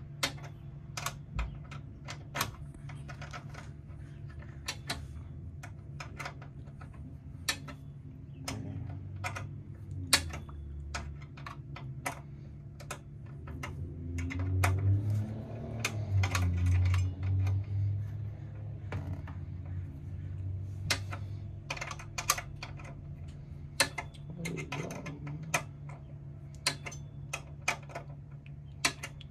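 Irregular sharp clicks and light metallic taps of screws and a hand tool being worked against the sheet-metal housing of an RV power converter during installation, over a low steady hum. A louder low rumble rises about halfway through.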